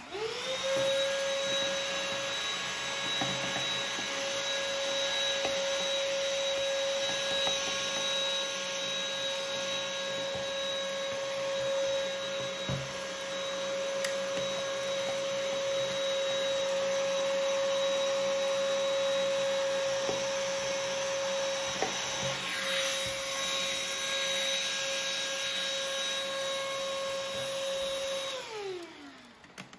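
Electric random orbit sander switching on and spinning up to a steady high hum with a sanding hiss, as its pad works over a wood and epoxy resin tabletop. It is switched off near the end and its pitch falls as it winds down.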